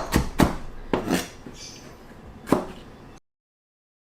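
Chef's knife slicing capsicum into strips on a cutting board: a few sharp chopping strokes, quick at first and then spaced out, with a last stroke about two and a half seconds in, before the sound cuts off abruptly.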